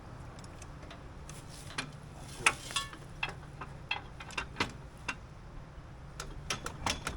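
Sharp metallic clicks and clinks of hand work on a tractor's three-point hitch and plow, more than a dozen irregular strikes, the loudest about two and a half seconds in, over a steady low hum.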